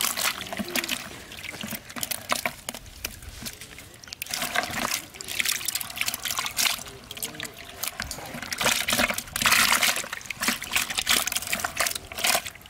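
Water splashing and sloshing in a plastic bucket as hands move through live fish in shallow water, in irregular bursts, loudest about nine to ten seconds in.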